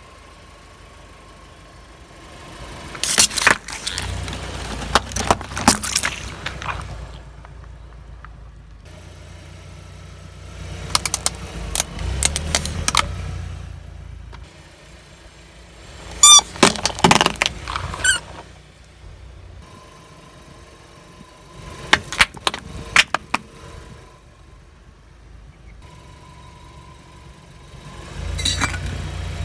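A car's tyre rolling slowly over hard, crunchy objects and crushing them, with clusters of sharp cracks and snaps over a low rumble from the car. This happens about five times, with quieter gaps between passes.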